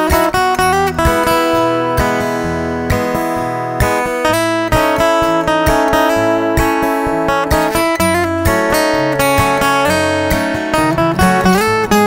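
Acoustic guitar music: a flowing run of plucked notes over a stepping bass line.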